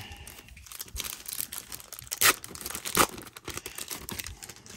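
A 1991 Score baseball card pack's wrapper being torn open and crinkled by hand, with a steady crackle and two loud sharp rips, about two and a quarter and three seconds in.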